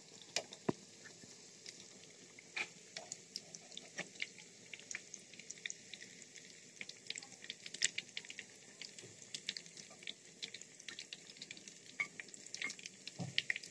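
Oil sizzling faintly around chicken-and-potato chops deep-frying in a pan, with many scattered crackles and pops and a few louder clicks as a metal spatula lifts the fried chops out.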